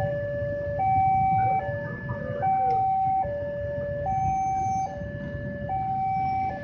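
Railway level-crossing warning alarm sounding its two-tone signal, a higher and a lower tone alternating about every 0.8 seconds, warning that a train is approaching. Under it is the low rumble of the engines of the waiting motorcycles.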